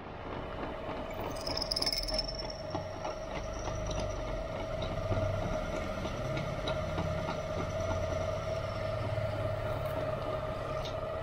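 Bench drill press running with its bit cutting through a stainless steel spoon-lure blank: a steady motor hum with a low rumble and a crackle of metal chips, and a high squeal from the bit in the steel from about one to four seconds in.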